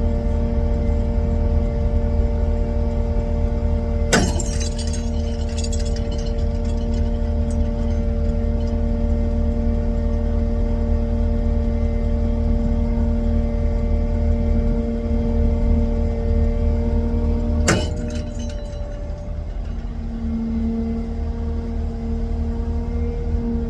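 Heavy diesel machinery engine running steadily with a low rumble and a constant hum. Two sharp knocks ring out over it, about four seconds and about eighteen seconds in.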